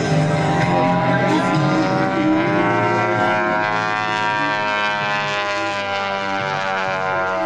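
Engine of a 50% scale Yak 54 radio-control aerobatic plane droning in flight, its pitch rising smoothly to a peak about halfway through and then falling.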